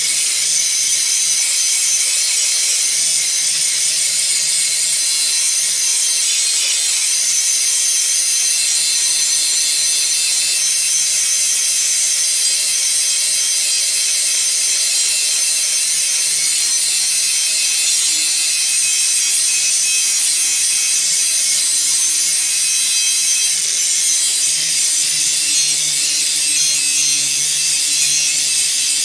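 A grinder runs steadily under load, its disc grinding down a weld on a steel jig piece and rounding the edge. There is a continuous loud, high hiss of metal being ground over the motor's steady hum.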